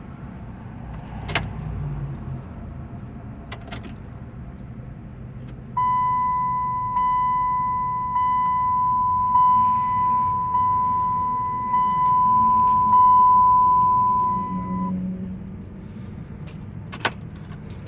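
Keys clicking and jangling at the ignition of a 2002 Saturn SL1, then a steady, high electronic warning tone from the car for about nine seconds, with a slight break about once a second. No cranking follows: the car won't crank.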